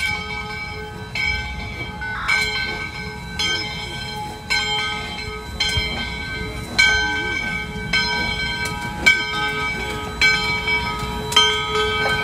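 The bell of ALCO 4-6-2 steam locomotive No. 148 ringing steadily, about one strike a second, as the engine rolls past. A low rumble from the moving train runs under it.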